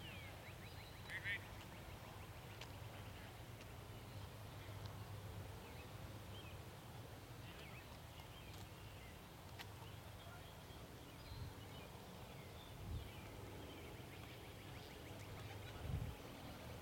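Quiet outdoor field ambience: a steady low rumble with faint, scattered high chirps and a few soft thumps in the second half.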